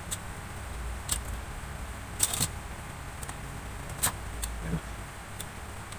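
Scattered sharp clicks and taps from a refrigerator circuit board and its wire leads being handled, about half a dozen, the loudest a little over two seconds in and at about four seconds, over a low steady hum.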